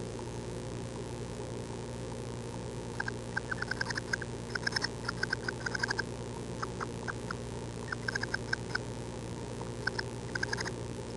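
Tree swallow nestlings begging: bursts of rapid, short high peeps that start a few seconds in and come in several bouts, over a steady background hum.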